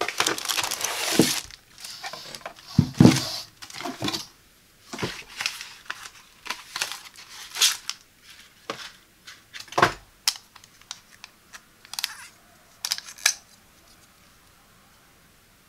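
Unboxing handling sounds: plastic wrap crinkling and cardboard rustling as a wrapped knife block is lifted from its shipping box, with a few knocks. Then a run of short taps and scrapes as kitchen shears are slid out of a cardboard sleeve.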